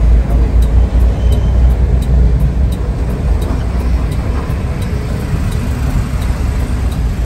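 Steady low rumble of a Mercedes-Benz OH 1521 bus on the move, engine and road noise heard from inside the cabin, with a faint regular tick about three times a second.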